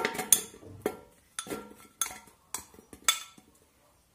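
A knife scraping and tapping against a ceramic bowl as soft pitted dates are pushed out and drop into a stainless steel blender jug: a run of sharp clinks and knocks about twice a second, stopping a little after three seconds in.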